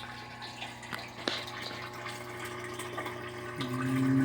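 Top-load washing machine filling for a super load: water running into the tub from the inlet valve, under a steady low hum, with a few light clicks.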